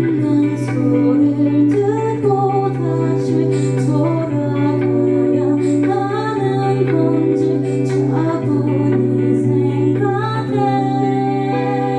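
Indie rock band playing live, with a singer's voice carrying a bending melody over a steadily held low note.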